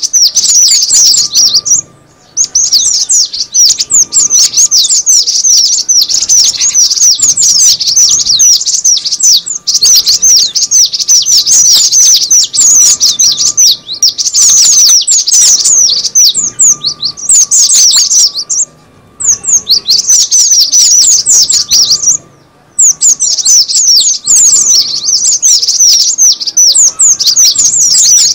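Cinereous tit (gelatik batu) lure call: loud, fast runs of sharp, high chirps in an excited chatter. The chatter breaks off briefly about two seconds in, and again twice past the middle.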